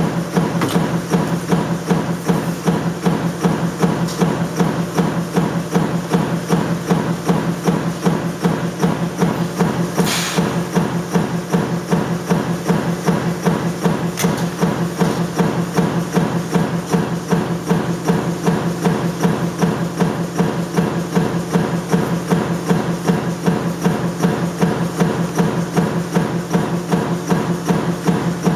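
Metalworking machinery running with a rapid, even knocking, several knocks a second, over a steady low hum. A short hiss comes about ten seconds in.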